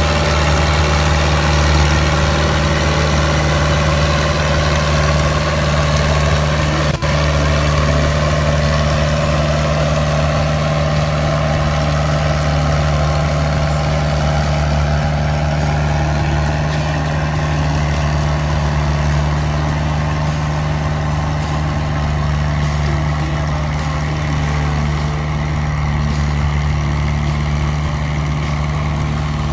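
Fiat 80-66 DT tractor's diesel engine running steadily while ploughing, with a single brief click about seven seconds in.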